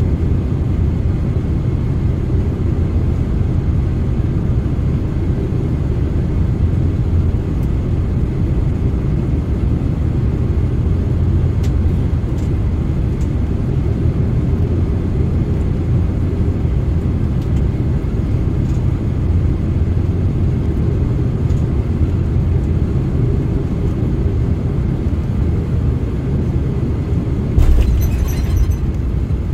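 Jet airliner cabin noise on final approach: a steady low rumble of the engines and rushing air. Near the end it suddenly turns louder and rougher as the wheels touch down on the runway.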